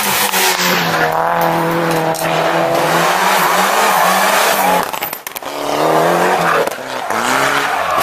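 Rally cars driven hard through tarmac corners, one after another. The engine notes rise and fall with throttle and gear changes. The sound drops briefly about five seconds in before the next car's engine comes in.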